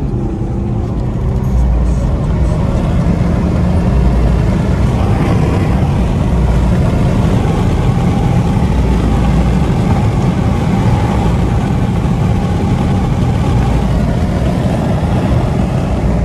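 Infiniti Q50's twin-turbo V6 pulling hard up a freeway on-ramp, under heavy road and wind noise that gets louder about a second and a half in and then holds steady.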